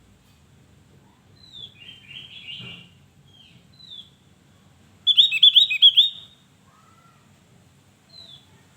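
Javan grey-throated white-eye calling: short high downslurred notes repeat every second or so, with a brief warble about two seconds in and a loud, rapid run of chirps about five seconds in.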